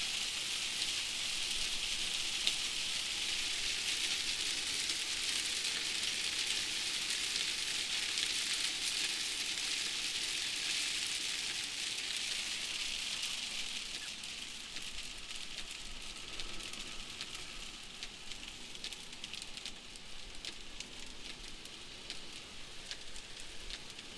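Heavy rain hissing steadily. In the second half it eases off into lighter rain, with separate drop ticks standing out.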